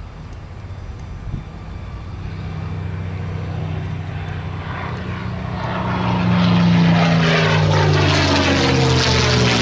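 Piston engines of a World War II propeller warbird growing louder as it flies in low, then passing over with the engine note dropping in pitch late on, with a swirling, phasing sound as it goes by.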